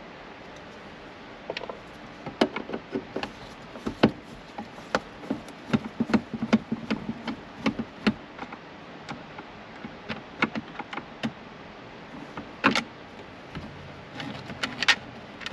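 Irregular small clicks and taps of a hand screwdriver backing out Phillips screws from a car's plastic overhead console, with a sharper click about two-thirds of the way through and a few more near the end.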